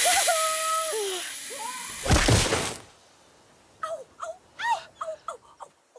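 A woman's drawn-out cry of delight as she swings on a rope, then a loud crash about two seconds in as she slams into something hard. After a short pause come several short, whimpering gasps and cries of shock.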